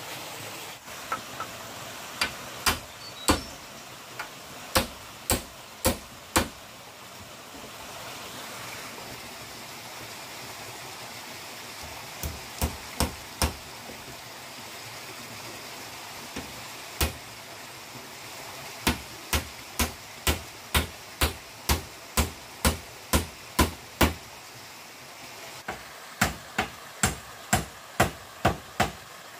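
Tool blows on bamboo, sharp strikes coming in runs of several at about two or three a second with short pauses between runs. A small stream rushes steadily underneath.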